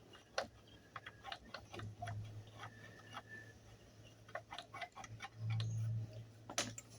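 Scattered light clicks and taps of small metal engine parts being handled, faint and irregular. A faint low hum swells briefly twice.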